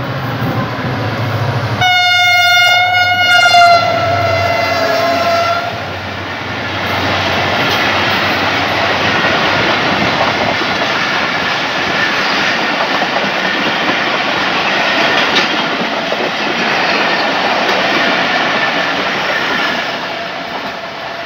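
Diesel-electric locomotive (Pakistan Railways HGMU-30R) rumbling up, then sounding its horn for about four seconds as it passes, the pitch sagging slightly as it goes by. It is followed by the steady rumble and wheel clatter of the passenger coaches rolling past, which fades near the end.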